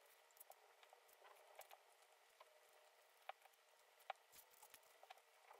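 Near silence, broken by faint scattered ticks and rustles from fabric and pins being handled while bias tape is fastened around a fabric circle. Two slightly sharper ticks come in the second half.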